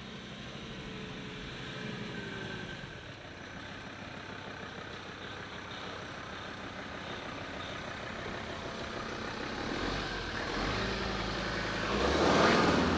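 Motor vehicle engine running steadily, swelling louder near the end.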